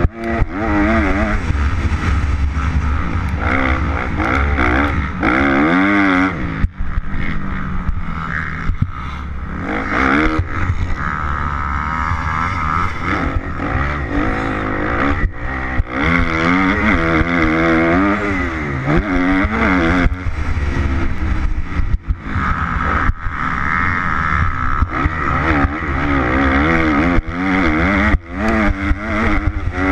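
Kawasaki KX250F four-stroke single-cylinder motocross engine revving hard through the gears, its pitch repeatedly rising and falling as the throttle is opened and shut while the bike is ridden around a dirt track. A steady low wind rumble on the microphone runs underneath.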